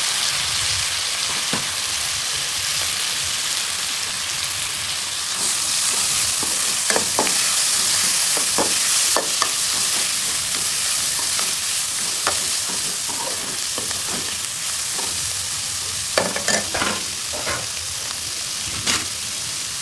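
Chopped vegetables frying in oil in a pan, a steady sizzle, with a spatula scraping and clinking against the pan many times as they are stirred.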